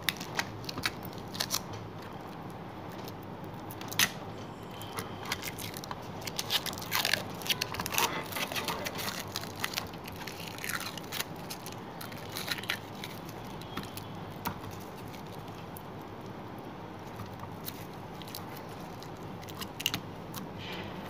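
Clear plastic protective film crackling and crinkling as it is peeled off a plastic lamp housing, in irregular bursts of small crackles, busiest about a third of the way in.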